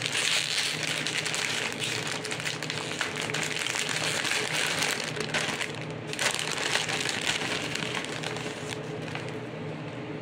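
Plastic snack bag of pork rinds being pulled open and rustled as a hand reaches in for a rind; the rustling thins out near the end.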